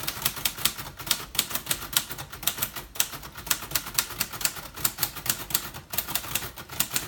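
1956 Royal Quiet Deluxe manual typewriter being typed on at a steady pace, its typebars striking the platen about five times a second, with a brief pause about six seconds in.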